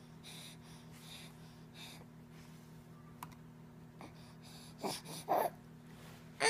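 A baby's soft breathing, then two short fussy whimpers about five seconds in, and a loud wail starting right at the end as the baby begins to cry.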